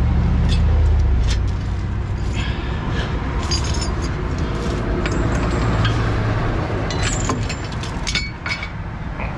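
Metal chain clinking and rattling in a run of short, irregular clinks as it is handled and hooked around the truck's front axle, over a steady low rumble.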